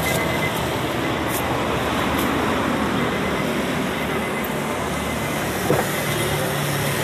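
Steady vehicle and traffic noise, with one short knock about six seconds in as the car's rear door is opened.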